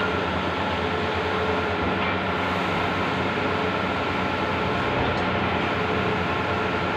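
Large-format outdoor digital printing machine running: a steady mechanical whir and low hum with a constant high tone, and a mid tone that switches on and off every second or so.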